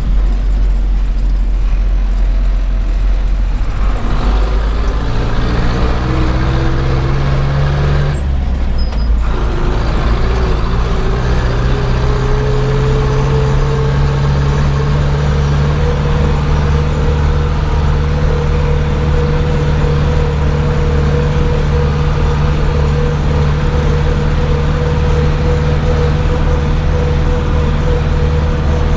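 Zetor 7011 tractor's four-cylinder diesel engine running under way. The revs climb about four seconds in, drop away briefly near eight seconds, then climb again and hold steady to a constant drone.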